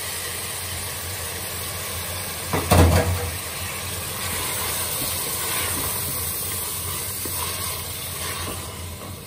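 Mutton with freshly added chopped tomatoes and green chillies sizzling in hot oil in a metal pot, stirred with a wooden spoon. A single loud knock about three seconds in.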